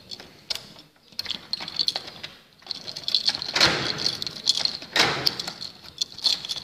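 A door being unlocked and opened by hand: a bunch of keys jingling and the lock and handle clicking and rattling irregularly, with two louder scraping rushes midway.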